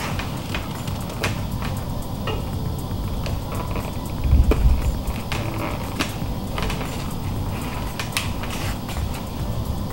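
Handling noise from fitting a softbox's fabric inner diffusion baffle, with scattered small clicks of its metal clips being fastened onto elastic loops. A dull thump about four and a half seconds in.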